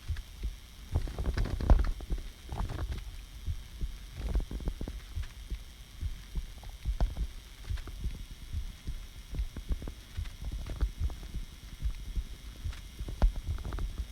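A person's heartbeat heard up close: a steady, even run of low thumps. Her breathing swells softly under it now and then.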